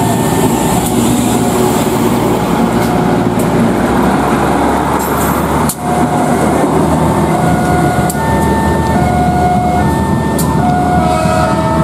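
A diesel railcar train (KRD) running past at close range, its engine and wheels loud, while a level-crossing warning alarm sounds in two alternating tones. The sound breaks off abruptly about six seconds in and resumes with the same two-tone crossing alarm over the rumble of the approaching train.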